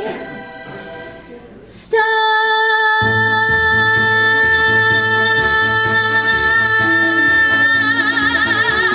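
A woman singing into a handheld microphone, belting one long high note from about two seconds in and holding it, with vibrato coming in near the end. Low backing chords change underneath the held note.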